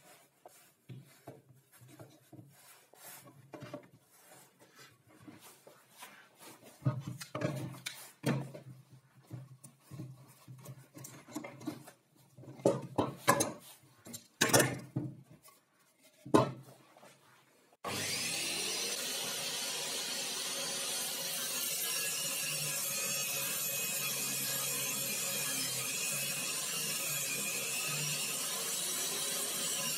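Knocks and clatter of clamps and plywood being handled and set down, loudest about halfway through. At about 18 seconds this gives way abruptly to a table saw running steadily.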